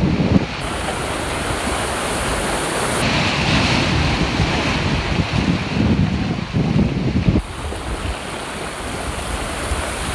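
Ocean surf churning and washing over rocks at high tide, with gusts of wind buffeting the microphone.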